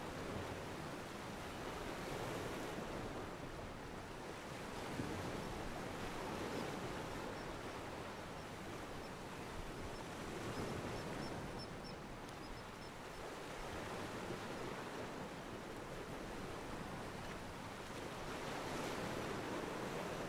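Ocean water washing against a pier, a steady wash that swells and eases every few seconds.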